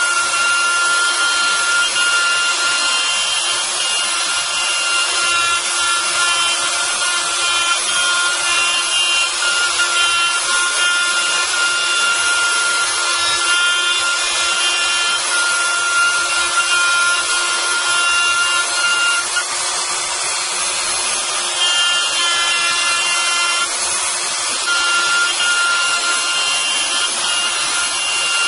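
Kress milling motor on a robot arm running at high speed while its end mill cuts into a block: a steady high-pitched whine over a hissing, rasping cut. The whine fades briefly about two-thirds of the way through, then returns.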